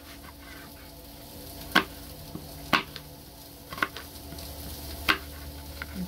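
Paring knife cutting apple on a plastic cutting board: four sharp knocks of the blade hitting the board, about a second apart. Underneath, the faint steady sizzle of sausage frying in a pan.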